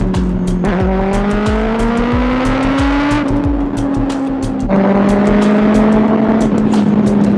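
Kawasaki ZX6R 636cc inline-four engine running at road speed, its note rising as it accelerates for a couple of seconds, then dropping suddenly in pitch and getting louder as it shifts up. Heavy wind rumble on the mic throughout.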